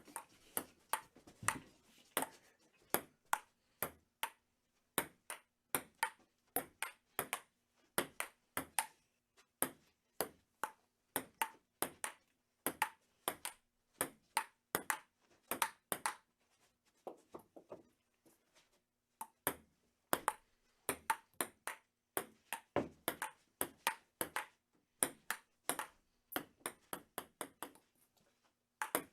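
Table tennis rally: a ping-pong ball clicking sharply against paddles and the table, about two hits a second in an uneven rhythm.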